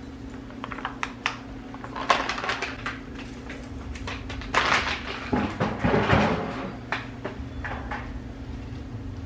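Soup being poured into a pot on the stove, with scattered clicks and knocks of kitchen handling and a longer noisy stretch of pouring about halfway through, over a steady low hum.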